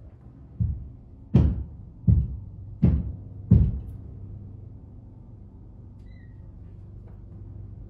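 Five heavy knocks in quick succession, about two-thirds of a second apart, the first one softer than the rest, over a steady low hum.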